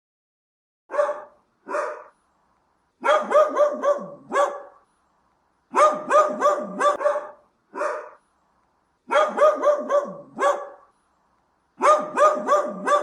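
A dog barking: two single barks, then quick runs of four or five barks with short pauses between them.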